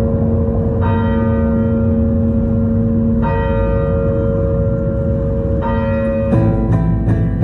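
Bell strikes, about one every two and a half seconds, each ringing on over a steady hum. Strummed guitar music comes in near the end, as the opening of a folk dance tune.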